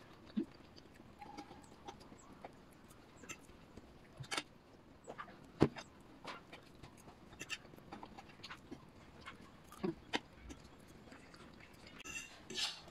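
Metal fork clinking and scraping against a ceramic plate in scattered light taps, one sharper click about halfway through, over quiet room tone.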